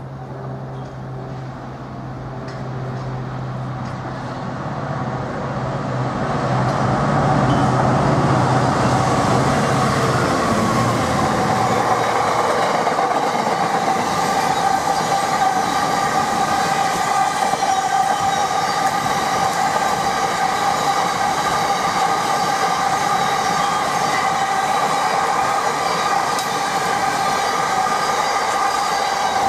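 A Class 66 diesel locomotive's two-stroke EMD V12 engine hums, growing louder as it approaches and passes. It gives way about eleven seconds in to the steady rolling rumble of empty coal hopper wagons going by close, with a sustained high squeal from the wheels.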